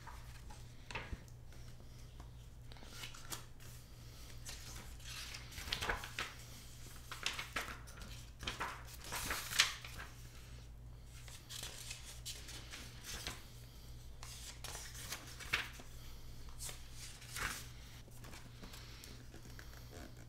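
Thin pages of a thick hardback book being turned and leafed through: soft paper rustles and swishes at irregular intervals, a few sharper ones in the middle, over a low steady hum.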